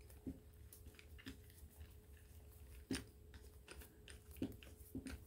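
Faint scattered clicks and rustles of hands working at a tied-up toolkit pouch to open it, with one sharper click about three seconds in.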